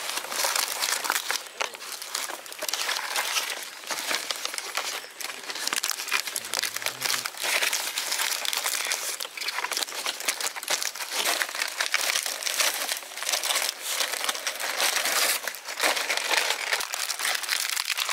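Dry palm leaves crinkling and rustling without a break, a dense crackly noise.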